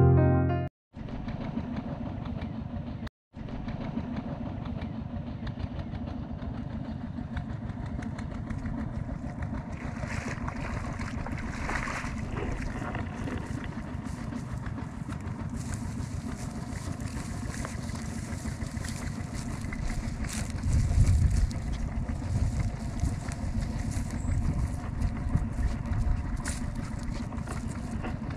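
An engine running steadily, with a constant hum, cutting out briefly twice in the first few seconds and with louder low rumbles about twenty seconds in.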